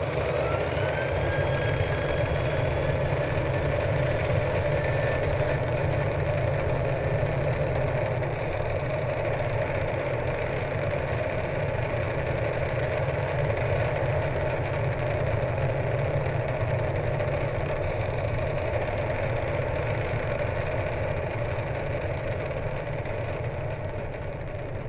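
Spacecraft engine sound effect running steadily during launch: a deep, even rumble with a hum above it and a faint rising whine near the start. It eases off slightly near the end.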